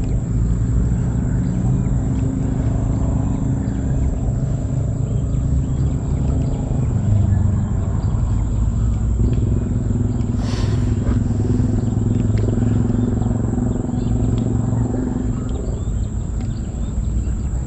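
A small boat's engine running steadily with a low hum, with two short hisses about ten seconds in.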